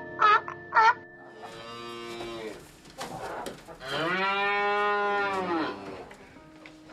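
A cow mooing twice: a shorter, quieter moo, then a long, louder one whose pitch rises and falls. It is preceded in the first second by two short, sharp calls from another animal.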